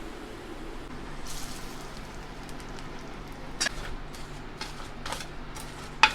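A few light clinks and knocks of a spoon against a metal vessel while fried idli pieces are mixed with the spice powder and mustard-seed tempering, sharpest just before the end, over a low steady hum.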